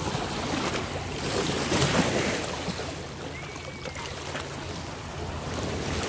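Small, choppy bay waves lapping and washing in at the water's edge, building to a louder wash about two seconds in, with wind on the microphone. A low, steady motor hum runs underneath.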